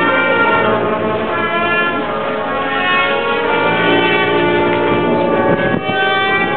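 Orchestral music with brass instruments playing held notes.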